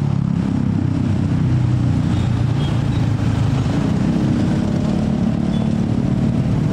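Many motorcycle and scooter engines running together as a crowd of riders moves off over a level crossing: a steady low rumble.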